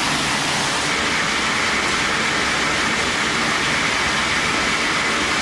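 Steady din of a gold room's wet concentrating plant running: pumps, a jig and a centrifugal concentrator bowl, with water rushing through the pipes and the jig bed. A higher hiss strengthens about a second in.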